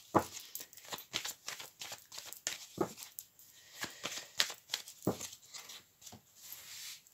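A deck of tarot cards being shuffled by hand, packets of cards slapping and riffling together in irregular quick clicks.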